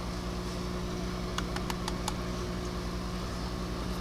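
Microwave oven running: a steady electrical hum, with a few faint ticks about halfway through.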